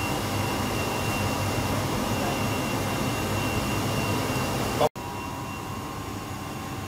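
Steady whooshing hum of commercial kitchen ventilation, with a faint high whine in it. About five seconds in it cuts abruptly to a quieter steady hum.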